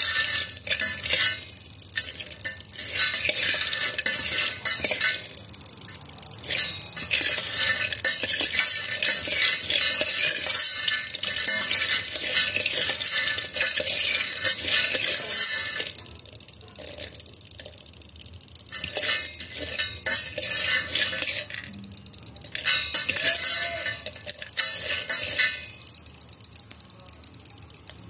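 A steel spoon stirs raw peanuts dry-roasting in a stainless-steel electric kettle, no oil. The nuts and the spoon make a dense scraping rattle against the steel bowl. It pauses briefly a couple of times and dies down near the end.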